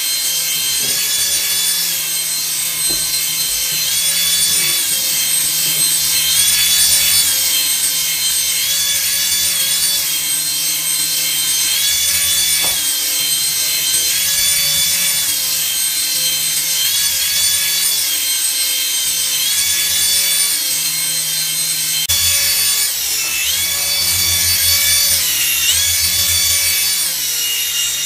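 Small electric motors of an induction flying toy spinning its two stacked rotors, a continuous buzzing whir whose pitch shifts up and down every second or so as the toy climbs and sinks.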